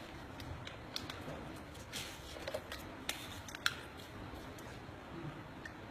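Thin plastic water bottle (Dasani) being handled with gloved hands: the cap twisted open and the bottle's plastic crackling in a series of scattered sharp clicks.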